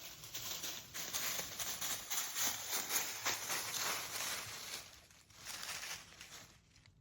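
Dense crunching and rustling, a rapid run of small clicks and scrapes, that stops about six and a half seconds in.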